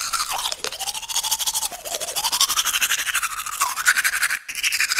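A fast, steady buzz that glides up and down in pitch, breaking off briefly about four seconds in.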